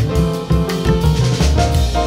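Background jazz music with piano, bass and a steady drum-kit beat.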